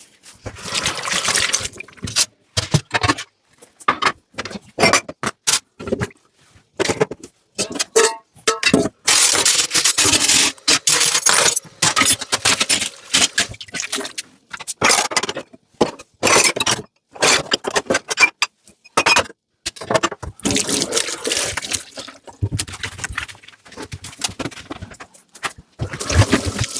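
Dishes being washed by hand in a sink: plates and glassware clinking and scraping, with stretches of running tap water. The sound is broken by short silent gaps.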